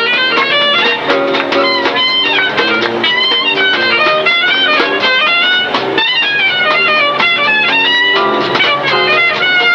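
Marching band music: quick runs of short, bright notes over held lower chords, with no pause.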